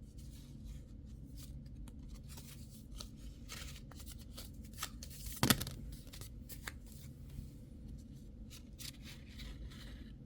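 Packaging being handled and opened by hand: scattered rustling, scraping and small clicks, with one sharp click or knock about halfway through.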